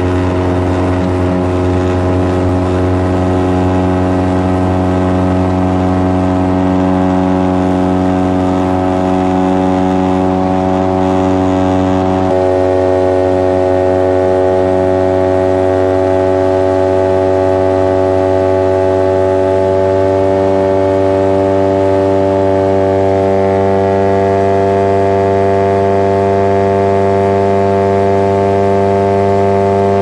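LN-3 Seagull's pusher engine and propeller running steadily at power, heard from inside the cockpit as a constant drone; the pitch shifts slightly about twelve seconds in.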